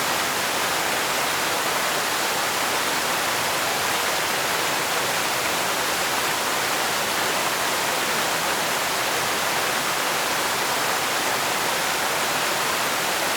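Steady, unbroken rush of falling water from a forest waterfall.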